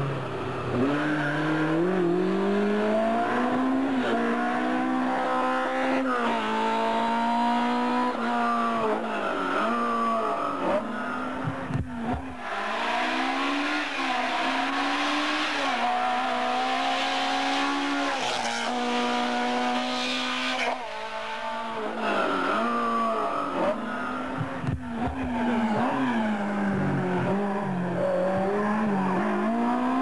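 Small racing car engines revving hard and falling back again and again as the cars are driven flat out through a cone slalom. The engine note climbs in waves of a second or two, then drops for gear changes and braking. A second car takes over about 12 seconds in.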